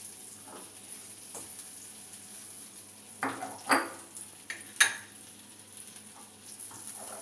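Butter sizzling faintly as it heats in a pan, with a few sharp knocks of a utensil against the pan about three to five seconds in.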